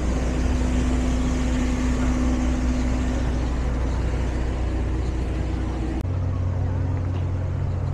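City traffic: vehicle engines running steadily with a low hum, the sound changing abruptly about six seconds in.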